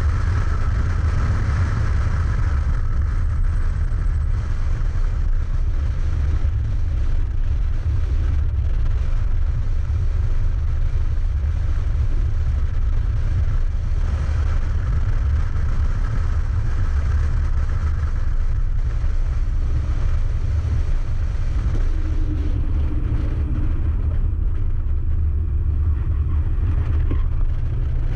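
BMW E46's engine running hard at track speed through corners and straights, under a heavy, steady low rumble of wind and road noise at the open driver's window.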